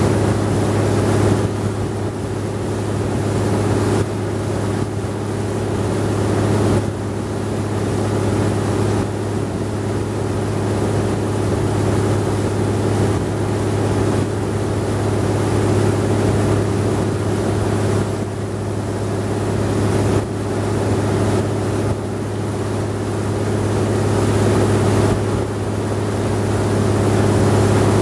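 Wooden river tour boat's engine running steadily at cruising speed, a noisy, even drone with a hiss of wind and water over it.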